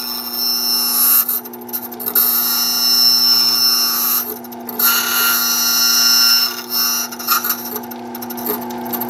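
Keyline Meta 106 key-cutting machine running with a steady motor hum while its cutter grinds into a key blank layer by layer. The high grinding hiss comes and goes several times as the blank is fed into and pulled back from the cutter.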